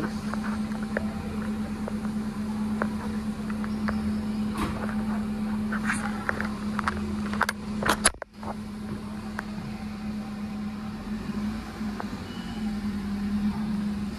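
Motorcycle engine idling with a steady hum, with scattered clicks and knocks of handling, and a loud knock about eight seconds in just before the sound briefly drops out.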